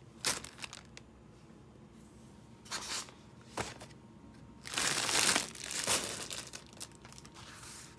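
Plastic packaging crinkling as a rolled canvas in its printed plastic wrap is handled, in several short bursts, the longest and loudest about five seconds in.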